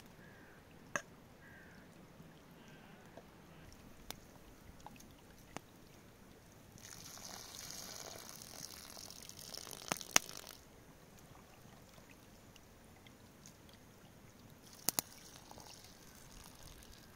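Water poured from a bottle into a metal pan of grain, splashing for about four seconds in the middle. A few sharp clicks and knocks come before and after, the loudest one near the end of the pour.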